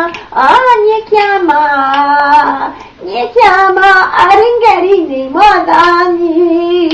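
A person singing a melody in a high voice, in several phrases with long held notes.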